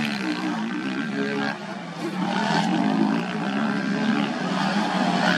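Several motocross dirt bikes' engines revving hard, the pitch rising and falling as riders work the throttle, with a brief drop in loudness about a second and a half in.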